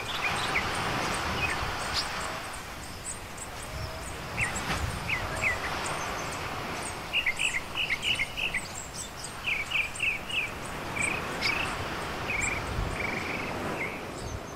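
Small waves washing onto a sandy beach, a steady surf noise that swells and fades, with birds chirping in quick runs of short high notes several times.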